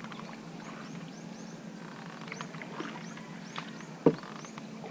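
Short high chirps repeat over a steady low hum. About four seconds in, a single sharp knock comes from the paddle striking the wooden outrigger canoe.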